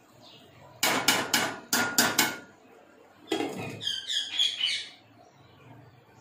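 A metal spoon knocked about six times against the rim of a steel cooking pot, then a glass lid set down on the pot with a clatter, squeaking briefly against the rim as it is settled.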